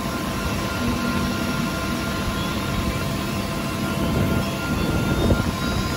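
UH-60 Black Hawk helicopter running, heard from inside its cabin: a steady, loud wash of engine and rotor noise with a few high whining tones running through it.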